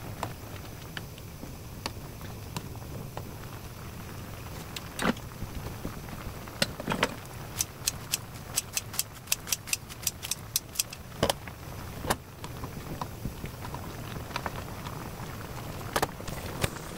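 Pan of napa cabbage soup with perilla-seed powder at a rolling boil: a low steady rumble with scattered sharp pops and ticks, and a quick run of about four ticks a second in the middle.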